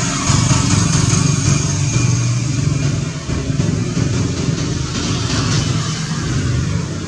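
A motor vehicle engine running steadily, a continuous low drone with hiss above it and no clear rise or fall in pitch.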